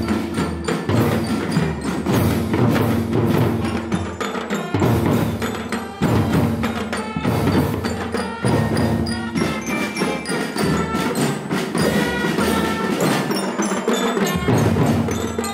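Marching band drum line playing rapid stick patterns on snare and tenor drums, with a pitched melody ringing over the drumming.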